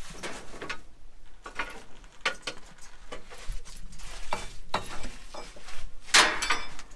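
Metal clinking and clanking from handling the broken roller chain of a grain auger and the tools used to repair it: a run of separate clinks, some with a short metallic ring, the loudest cluster near the end.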